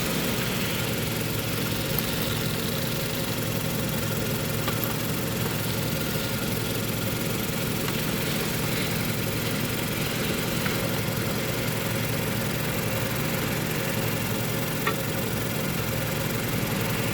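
Mazda CX-5 engine idling steadily, with a few short clicks from the chassis, the low-speed knock that is put down to a displaced lower control arm ball joint.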